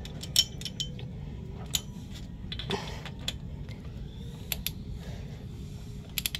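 Irregular light metallic clicks and ticks of a torque wrench and socket being handled and set onto the cylinder head bolts of an engine.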